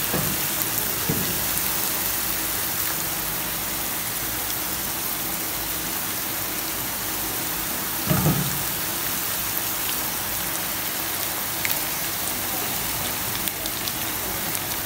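Potato and vegetable mixture sizzling steadily in a frying pan, an even hiss. A brief soft sound about eight seconds in as ketchup goes into the pan.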